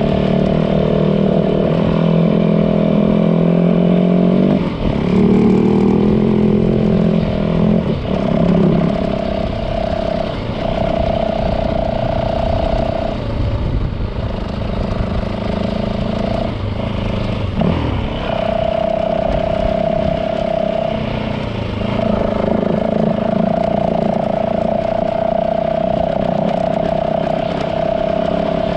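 Yamaha WR450 dirt bike's single-cylinder four-stroke engine running as the bike rides along a dirt trail. Its note dips and picks up again a few times as the throttle is eased and reopened.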